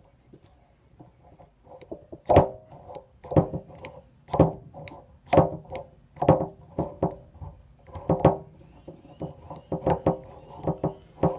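A 92–95 Honda Civic clutch master cylinder being pumped by hand to bench-bleed it. From about two seconds in, each stroke gives a sharp click, about one a second, as air is pushed out through the bleed tube.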